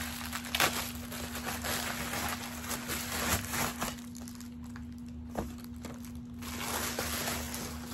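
A plastic Amazon poly mailer bag being pulled open and handled, crinkling loudly for the first few seconds, then rustling more quietly with a few sharp clicks and another spell of crinkling near the end. A steady low hum runs underneath.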